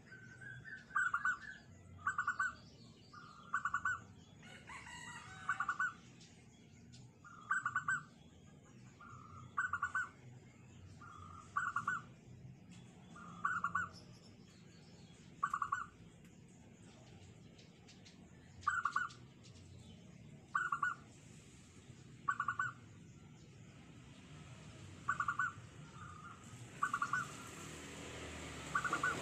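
Zebra dove (perkutut) cooing: a long series of about fifteen short coos, one every one to two seconds.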